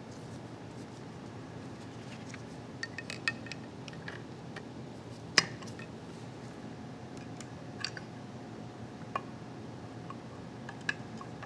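Scattered light metal clinks and taps as new brake shoes are set onto a drum-brake backing plate and seated against the anchor block and wheel cylinder. The sharpest clink comes about halfway through.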